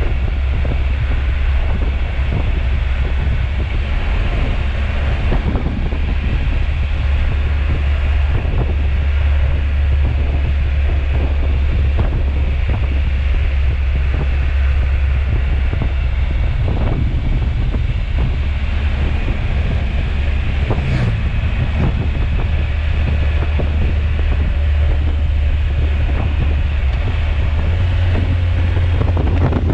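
Wind rushing over the microphone of a motorcycle-mounted camera while riding, with the motorcycle engine's steady low drone underneath. Near the end the drone steps up in pitch.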